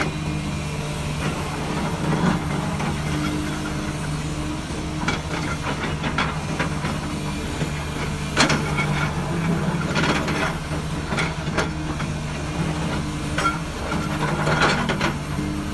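Komatsu PC300 hydraulic excavator's diesel engine running steadily under load as the bucket digs into rocky soil. Scattered clanks and scrapes of stones against the steel bucket, the loudest about eight and a half seconds in.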